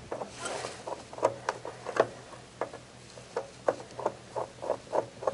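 Phillips screwdriver turning a screw out of a dehumidifier's metal drain pan: a string of short clicks and scrapes, settling into about three clicks a second near the end.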